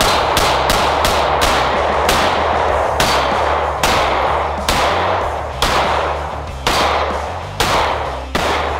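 Daniel Defense H9 9mm pistol firing a string of about a dozen shots, quick at first and then slowing to about one a second, each with a reverberating tail.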